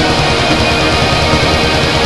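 Loud, dense music with no break: a steady wall of sound.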